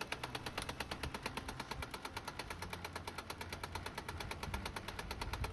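HP LaserJet Pro M202dw laser printer's drive mechanism knocking during a print: a rapid, even clicking of about ten knocks a second that stops near the end. The knock, called 'khat khat', comes from the motor's timing belt and its pulley wobbling.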